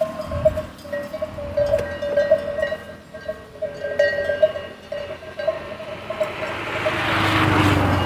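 Cow's neck bell clanking irregularly and without pause. From about six seconds in, a motor vehicle passing on the road swells to its loudest near the end.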